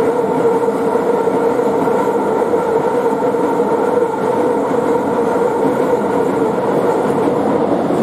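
Keikyu 1000 series electric train running past, a loud steady rumble of wheels on rails with a steady hum over it.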